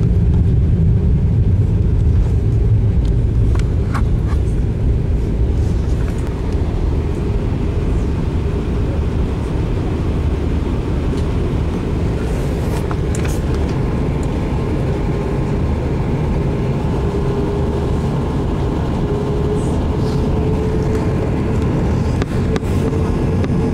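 Cabin noise of an Airbus A340-600 during take-off: a loud, steady low rumble from its four Rolls-Royce Trent 500 engines and the airframe. A faint tone rises slowly in the last several seconds.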